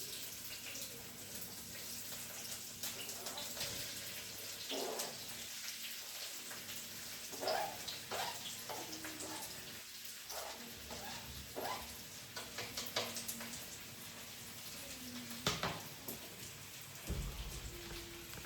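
Chopped onion, garlic and fresh chili sizzling in hot olive oil in a wok: a steady frying hiss, starting suddenly, with frequent small crackles and pops.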